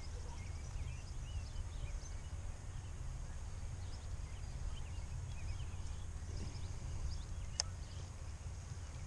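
Wind buffeting the microphone as a steady low rumble, with small birds chirping faintly and intermittently, and one sharp click about seven and a half seconds in.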